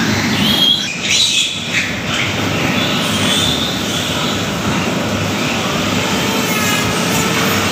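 Newborn piglet squealing in short bursts about a second in while held up by its hind legs, over the steady loud noise of farrowing-barn exhaust fans. Near the end a faint steady hum sets in as an electric tooth grinder is brought to the piglet's mouth.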